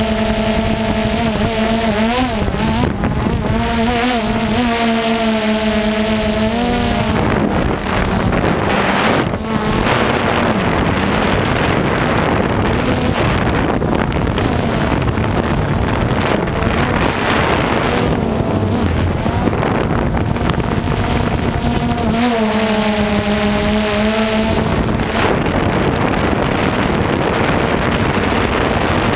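Multirotor drone's motors and propellers buzzing in flight, picked up by its onboard camera, the pitch wobbling up and down as the motors adjust. Wind rushes over the microphone throughout, and for much of the middle the buzz sinks into the wind noise before coming back clearly near the end.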